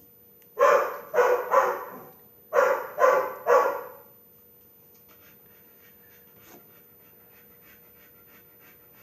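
A dog barking six times in two quick runs of three, then panting faintly.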